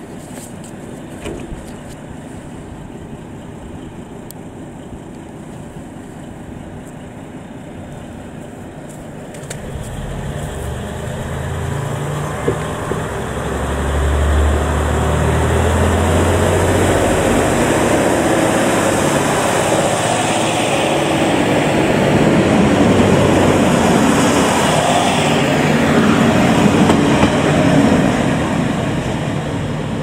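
Two-car KiHa 40 diesel railcar set idling steadily at first, then its engines rev up about ten seconds in as it pulls away, with a strong low engine note. It runs loudly for most of the rest, easing off near the end.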